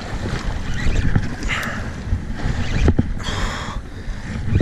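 Wind and sea noise on an open fishing boat: a steady low rumble, with a couple of short hissing rushes and a few dull knocks.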